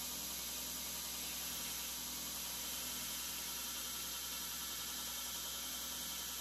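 KMG 2x72 belt grinder running slowed down on its VFD with a 120-grit belt, a steel knife blade held against it for light refining passes on the bevel: a steady grinding hiss.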